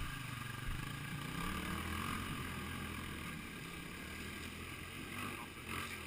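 Off-road trail motorcycle engine idling steadily, its pitch rising slightly for a moment about a second and a half in.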